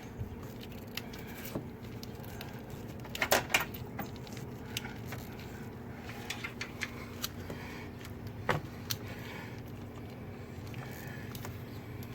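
Scattered metallic clinks and rattles of tools or parts being handled during car A/C compressor work, loudest in a quick cluster about three seconds in and a single sharp knock later on. Under them runs a steady low hum.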